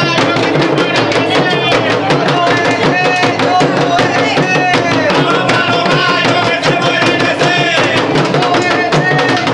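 Chimbanguele drumming: tall rope-tensioned drums beaten in a dense, continuous rhythm, with voices singing over the drums.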